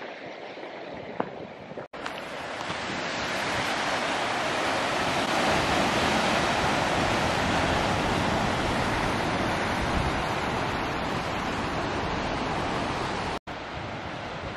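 Ocean surf washing over rocks at the foot of a sea cliff: a steady rush that swells louder a few seconds in, broken twice by a sudden brief dropout.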